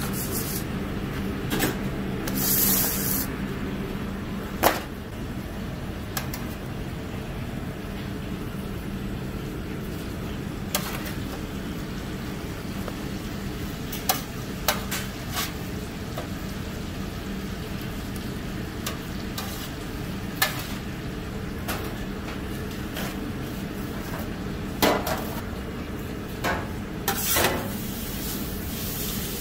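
Metal scoop scraping and tapping in an aluminium foil tray of rice, with scattered sharp clicks and short scrapes of foil and metal, over a steady low ventilation fan hum.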